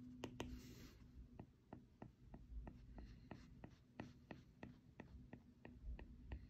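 Faint, quick taps and strokes of a stylus on an iPad's glass screen, about three a second.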